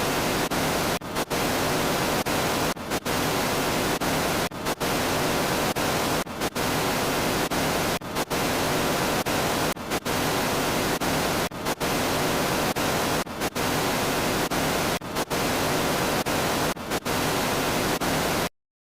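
Steady, full-range static hiss like white noise, broken by a brief gap about every second and three quarters, and cutting off abruptly near the end.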